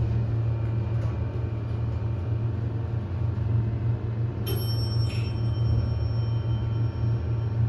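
Kencor hydraulic elevator in travel: a steady low hum, with a sudden short high-pitched tone about four and a half seconds in that fades away.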